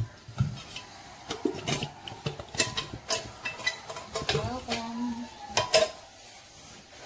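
Irregular metal clinks, knocks and scrapes of tin cans and a utensil as canned tomato is emptied into a blender jug.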